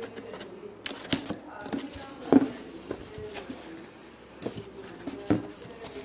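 A cardboard box and its packaging being handled and opened by hand: scattered rustles, scrapes and clicks, with a sharper knock about two and a half seconds in.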